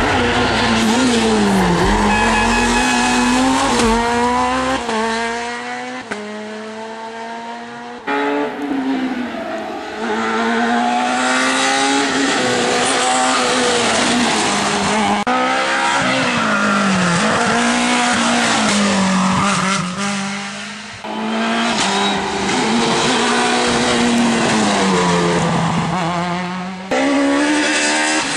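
Rally car engines at full throttle, revving up and dropping back again and again through gear changes and lifts as several cars pass one after another on a tarmac stage.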